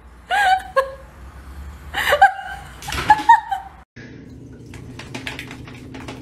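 A person laughing in three high-pitched bursts. After a cut, a steady low hum with quick, irregular ticks.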